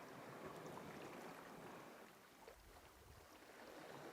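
Near silence: a faint outdoor hiss, with soft low rumbles of wind on the microphone in the second half.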